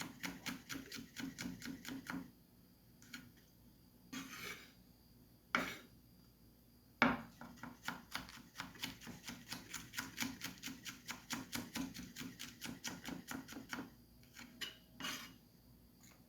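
Knife chopping pimento peppers on a cutting board in quick, even strokes. The chopping pauses after about two seconds, with a few scrapes and a knock in the gap, then starts again for about seven seconds.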